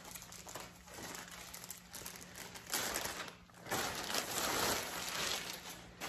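Clear plastic bag crinkling and rustling as a wig is pulled out of it, loudest in two stretches about three and four seconds in.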